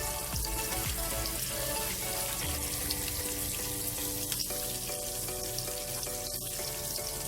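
Food sizzling in a frying pan, a steady hiss, with background music.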